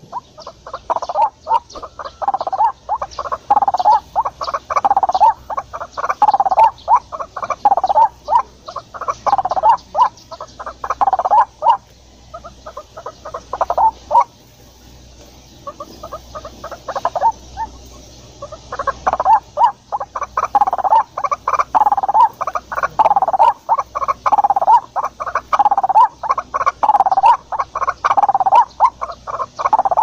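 White-breasted waterhen (ruak-ruak) calling: a long run of rapidly repeated notes that drops away for several seconds near the middle, then starts up again strongly.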